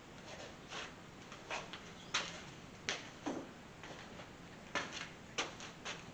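Masking tape being pulled off the roll and pressed down over openings on an engine, heard as a string of short, irregular rips and crinkles.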